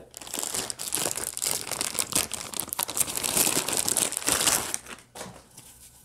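Clear plastic packaging bag crinkling as it is handled and opened, stopping about five seconds in, with a few faint rustles after.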